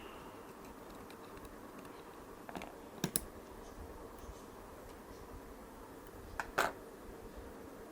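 A few sharp clicks and taps, a close pair about three seconds in and another pair near six and a half seconds, over a faint steady hum.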